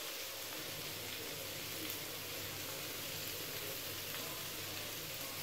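Steady, even hiss with a faint low hum underneath, and no distinct event.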